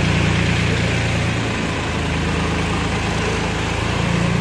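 Solis 2516 compact tractor's diesel engine running at idle, its note dropping and changing for a couple of seconds from about a second in as the tractor moves off, then steadying again.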